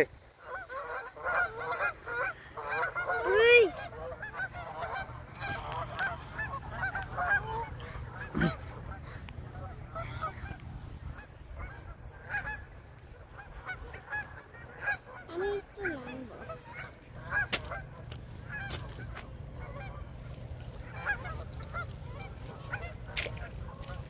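A flock of Canada geese honking, many overlapping calls in the first several seconds, thinning to scattered single honks. A steady low rumble runs underneath.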